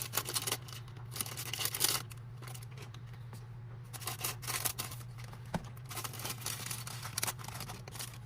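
Small plastic parts and packaging being handled: irregular light clicks and brief rustles, over a steady low electrical hum.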